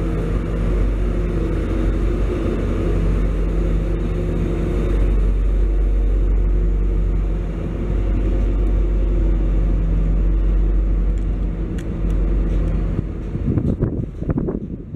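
Covered hopper wagons of a freight train rolling past: a steady rumble of wheels on rail with a low steady hum. About a second and a half before the end, wind gusts on the microphone break in.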